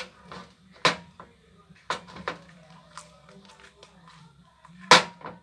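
Slime being stirred in a plastic pot: irregular knocks and clicks against the container, with one louder knock near the end.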